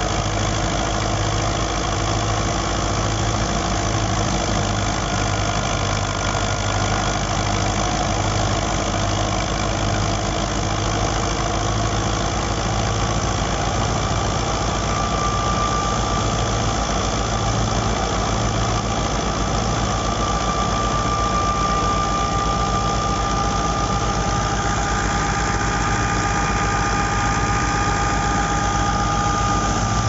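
New Holland Fiat 640 diesel tractor engine running steadily under load, driving a wheat thresher off its power take-off, with the thresher turning over continuously. A thin steady whine joins in about halfway through.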